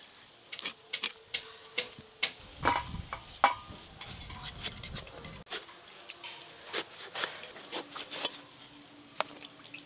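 Cauliflower and then eggplant being cut on a boti, a fixed curved blade held down on the floor: irregular sharp clicks and crunches as the blade goes through the vegetables.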